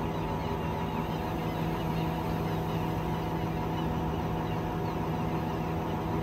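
Truck-mounted mobile crane's engine running steadily, driving the crane's hydraulics while a yacht hangs from the hook, with an even hum.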